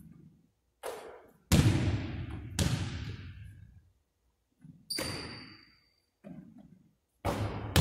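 A basketball striking the hardwood gym floor and the hoop, about seven sharp hits, each echoing and fading in the large hall. The loudest hits come about one and a half seconds in and near the end, and a brief high ring sounds about five seconds in.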